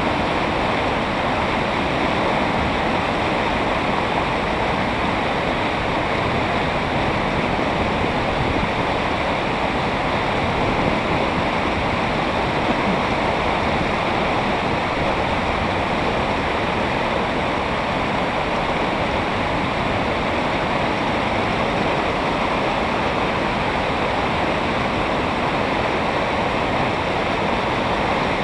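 White water pouring over a low weir and churning in the pool below: a loud, steady rush.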